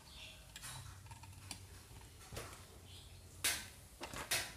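Light clicks and taps of alligator-clip leads being clamped onto a speaker's terminals and small electrolytic capacitors being handled, scattered and faint, with two sharper clicks near the end.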